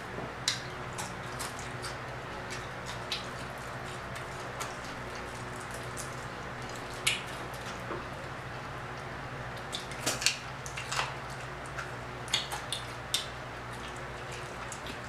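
Close-up eating sounds: crispy fried croaker fish crackling as it is pulled apart by hand and chewed, with scattered short crunches and mouth clicks. A steady electric fan hum sits under them.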